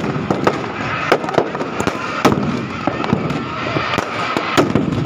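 Firecrackers packed inside a burning Ravana effigy going off in rapid, irregular bangs and cracks, over the noise of a large crowd.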